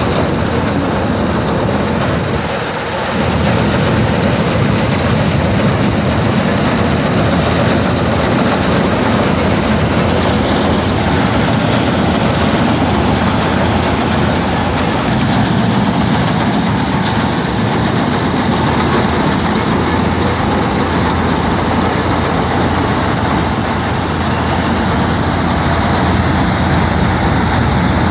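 Combine harvester running steadily while harvesting paddy: a loud, continuous mechanical din with a brief dip about three seconds in.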